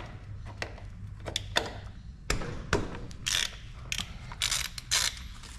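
Ratchet wrench clicking, loosening a transfer case plug with a 24 mm socket: single clicks spaced out at first, then short bursts of fast ratcheting in the second half.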